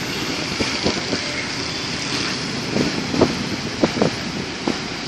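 Road traffic on a rain-soaked road: a steady hiss of tyres on wet asphalt. From about three seconds in there is a run of short, irregular taps.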